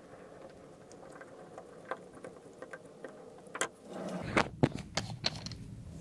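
Phillips screwdriver turning screws out of a sliding patio door handle: faint scraping and small clicks of the screwdriver working. About four seconds in come louder handling noise and a few sharp clicks.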